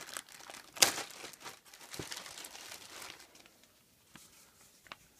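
Thin plastic packaging bag crinkling as hands pull it open and handle its contents, with one sharp, loud crackle about a second in. After about three seconds it drops to faint rustling and a few light clicks as folded paper sheets are handled.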